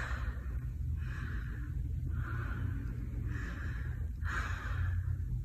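A woman breathing hard while holding a side plank, at about one breath a second, over a steady low hum.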